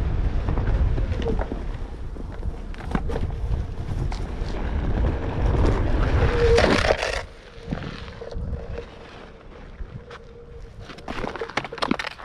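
Onewheel GT electric board ridden along a dirt trail: wind buffeting the action-camera microphone and rolling noise, with a faint steady hum. About seven seconds in the rush drops away as the board slows to a stop, and near the end there are scattered crunching clicks.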